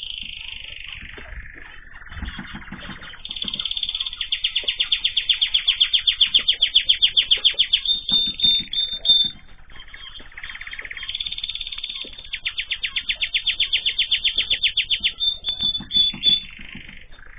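Small cage songbirds singing, with two long, rapid trills of repeated high notes, each lasting several seconds, and a pause between them.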